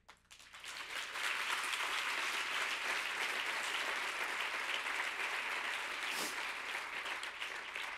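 Audience applauding: many hands clapping, swelling within the first second, holding steady, and dying away near the end.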